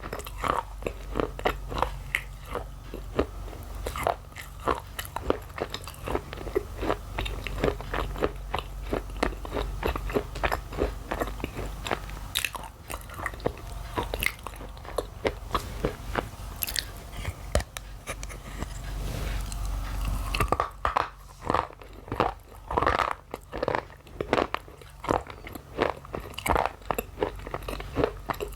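Close-miked biting and chewing of thin, brittle white shale: a steady run of sharp, crisp crunches and crackles, several a second.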